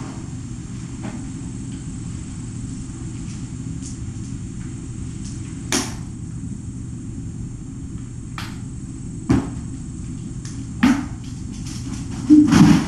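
Steady low room hum with scattered light knocks and thumps from kittens pouncing after a feather wand toy on the floor. The sharpest knock comes about nine seconds in, with a quick cluster of thumps near the end.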